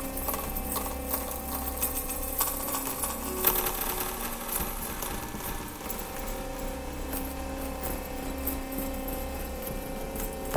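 Live experimental electronic music: a low drone and a few steady held tones under a dense layer of mechanical-sounding rattles and clicks.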